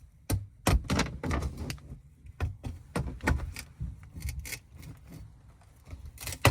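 Hand tin snips cutting sheet-metal ductwork: a run of irregular sharp metallic snips and crunches, about one to three a second, with a quick cluster near the end. The snips have a chunk missing from the blade and are dull.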